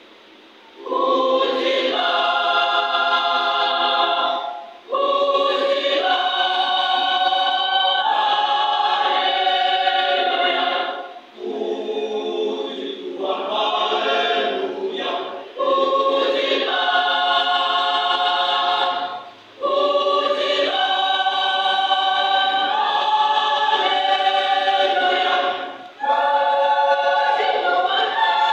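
Youth choir singing in sustained phrases with short breaks for breath between them, coming in about a second in, with a softer passage around the middle.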